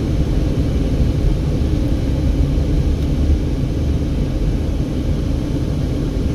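Steady low rumble of a car driving slowly along the road, engine and tyre noise heard from inside the cabin.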